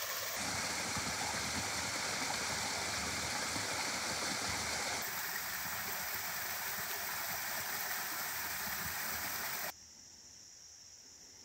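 Small low-flow waterfall pouring over a rock ledge into a pool, a steady splashing rush. Near the end the sound cuts to a much quieter scene with a steady high insect drone.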